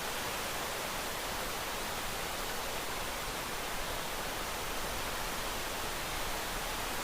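Rain sound effect for relaxation: a steady, even hiss with no single drops standing out.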